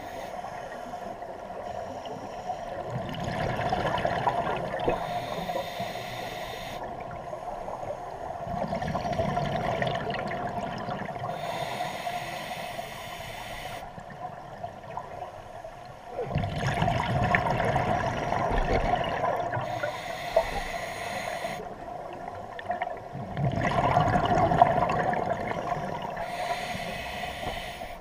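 Scuba diver breathing through a regulator underwater: slow hissing inhales alternate with louder bursts of exhaled bubbles, about four breath cycles.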